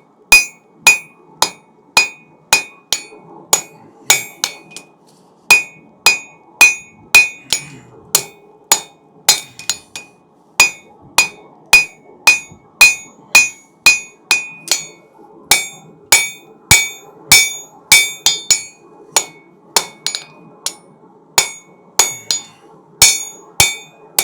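Hand hammer striking a hot steel bar over an anvil horn while forging a knife point. The blows come steadily at about two a second in uneven runs, each ringing briefly with a metallic ping.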